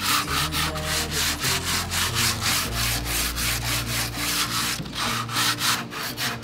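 Hand sanding weathered wooden bench slats with a sanding sponge: quick back-and-forth rubbing strokes, about four a second.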